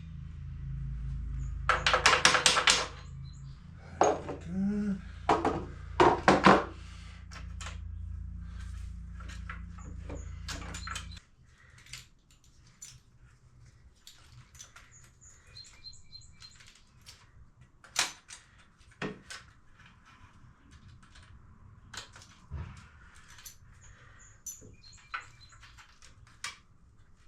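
Metal knocks and clunks as an electric motor is worked into a dirt bike frame, the loudest a quick cluster a couple of seconds in, over a steady low hum. The hum cuts off about eleven seconds in, leaving scattered light taps and clicks of parts being fitted.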